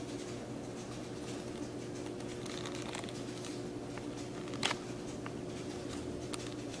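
Handling noise of a small toy bridle and its straps being fitted onto a plastic model horse: faint rustling and light ticks, with one sharper click about four and a half seconds in, over a steady low hum.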